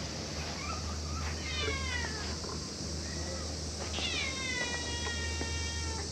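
A cat meowing twice. The first is a short meow falling in pitch about a second and a half in. The second, about four seconds in, starts high, drops and then holds for about two seconds.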